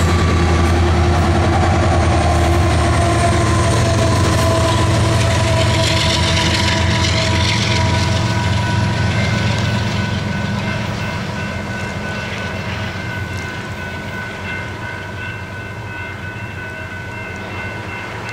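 Loaded coal train's gondolas rolling past with a heavy rumble and wheel clatter, fading away after about eight seconds as the end of the train clears. Grade-crossing warning bell ringing steadily over the fading rumble in the second half.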